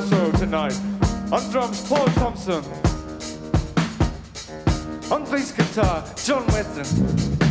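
Live rock band playing an instrumental passage, with the drum kit to the fore: steady kick and snare hits under pitched lead notes that slide up and down.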